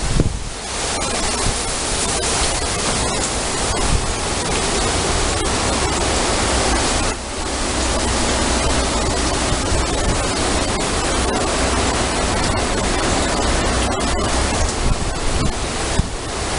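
Hurricane wind gusting through palm fronds and trees with heavy rain, a loud steady rush with a low rumble of wind buffeting the microphone. The wind eases briefly about seven seconds in.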